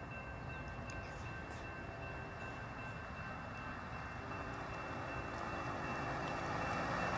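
Railroad grade-crossing warning bell ringing steadily, over road noise that grows louder toward the end as a pickup truck passes close and the freight train approaches.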